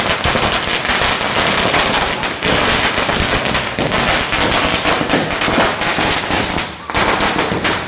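A string of firecrackers going off in a rapid, continuous crackle of sharp bangs, stopping at the end.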